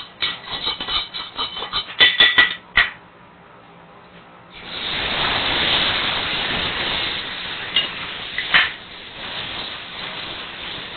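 Metal spoon clinking and scraping in a small pan for the first few seconds, then, after a short lull, a sudden loud sizzle of sauce in the hot pan that slowly dies down, with a couple of clinks along the way.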